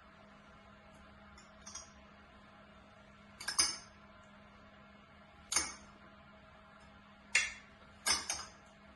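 A spoon clinking against a metal muffin tin as filling is spooned into its cups: a few sharp clinks every two seconds or so, with a quick pair near the end, over a faint steady hum.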